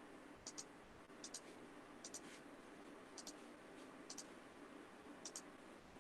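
Faint computer mouse clicks, mostly in quick pairs, about one pair every second, over a low steady room hum.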